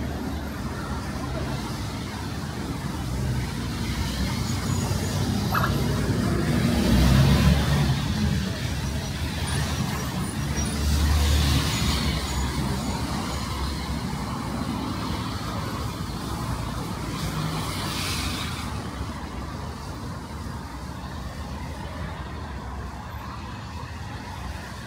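Road traffic on a wet city street: cars passing close by, the loudest about seven and eleven seconds in, over a steady hiss of tyres on wet road.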